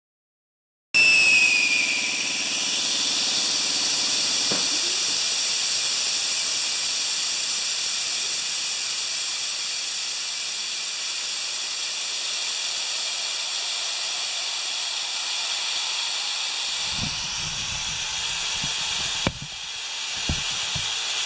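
Drain valve on a wheelbarrow air compressor's pressurised tank blowing down, with a loud, steady hiss of escaping compressed air carrying out oily water that has collected in the tank. The hiss starts suddenly about a second in with a brief falling whistle and eases only slightly; a few knocks come near the end.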